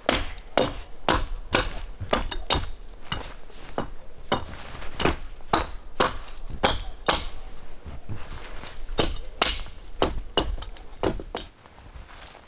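Hatchet chopping the branches off a fallen conifer trunk: a string of sharp, dry chops at about two a second, stopping near the end.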